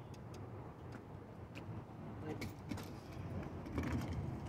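Low steady outdoor rumble, typical of wind on the microphone, with a few light clicks and taps scattered through and a little louder near the end.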